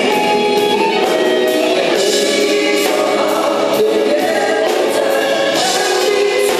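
Two male singers performing a pop-rock ballad live into handheld microphones, backed by a band with keyboard and drums.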